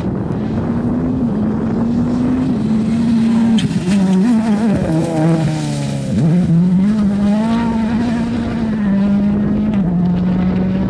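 Ford Fiesta RS WRC rally car's turbocharged four-cylinder engine at hard throttle on a gravel stage. It shifts up in quick steps, drops in pitch with braking and downshifts around the middle, then pulls away again through the gears.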